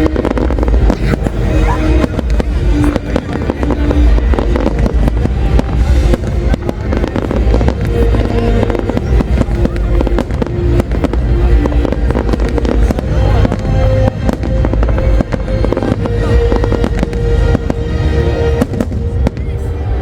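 Fireworks going off non-stop: a dense, continuous run of booming bursts and crackles, with music playing underneath.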